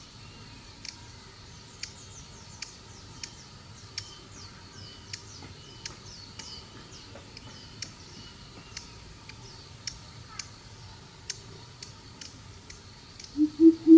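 Faint, rapid, high falling chirps and scattered soft clicks over a steady high hum. Near the end a greater coucal starts its deep, evenly spaced hooting call, much louder than the rest.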